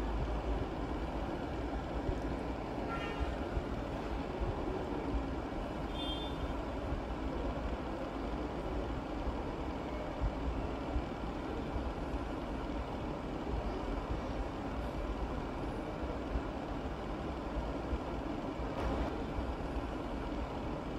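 Steady low rumble of commercial kitchen ventilation and equipment, with a brief squeak about three seconds in and a click near the end.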